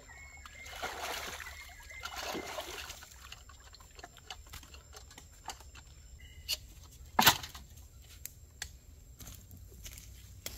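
Water sloshing and pouring in two short swells, followed by scattered small knocks and one sharp knock about seven seconds in.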